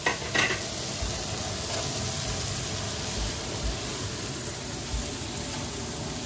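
Head-on shrimp sizzling steadily on a hot stovetop grill-griddle pan while being turned with tongs. The tongs knock against the pan twice near the start.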